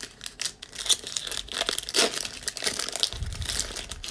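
Foil wrapper of a Panini Prizm basketball retail card pack being torn open and crinkled by hand: a dense run of crackling and ripping that stops about four seconds in.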